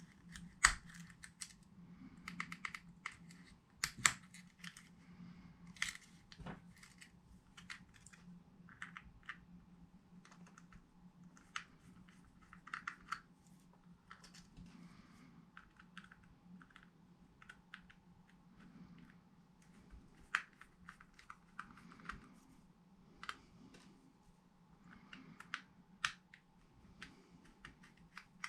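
Irregular small plastic clicks and taps from a Chinese diesel heater's key-fob remote control being handled and worked open by hand, over a faint steady hum.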